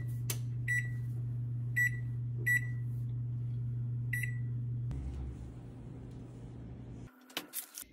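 Samsung oven control panel beeping four times as its keys are pressed to set convection bake and the timer, each a short high beep. Under the beeps runs a steady low hum, which shifts about five seconds in and stops near the end, followed by a few clicks.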